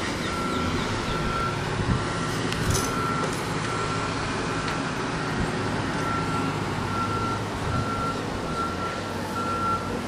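A vehicle's reversing alarm beeping, one steady tone repeating in an even rhythm, over a low engine rumble and outdoor background noise.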